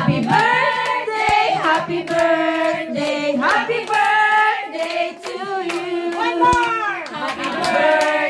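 A group singing together with hands clapping along in time.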